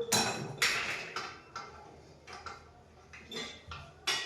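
Metal parts and tools clinking and knocking in a series of irregular sharp knocks, the loudest at the very start and just before the end.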